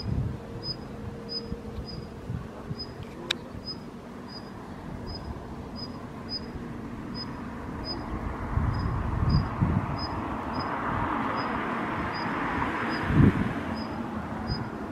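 Male Daurian redstart giving its thin, high 'hih' call over and over, about two to three calls a second. A rushing background noise swells in the second half, with a low thump near the end.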